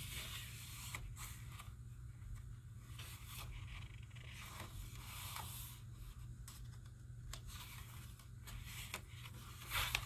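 Cardstock and mixed-media paper pages of a hand-bound beaded-spine journal being turned and smoothed by hand: faint paper rustling with several brief crisp page flicks.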